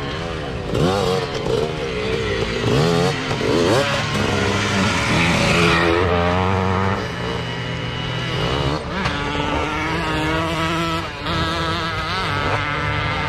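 Vintage dirt bike engines revving up and down over and over. The throttle is blipped on and off as the riders work over the endurocross tyre and log obstacles.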